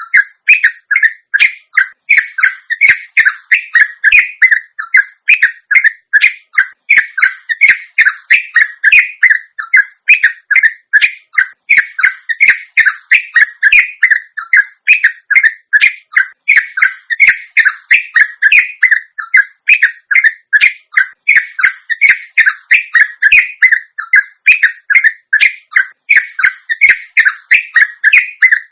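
Sooty-headed bulbul (trucuk) singing a long, unbroken 'ropelan' run: short notes repeated rapidly and evenly without a pause, the kind of song played to a caged bird to make it answer.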